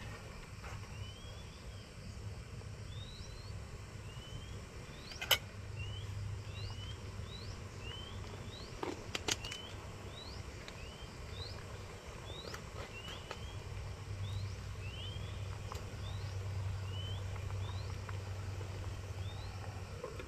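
A bird repeating short rising chirps about once a second over a low steady rumble. A sharp metal clink comes about five seconds in and a few more near nine seconds: a spoon knocking the aluminium cooking pot.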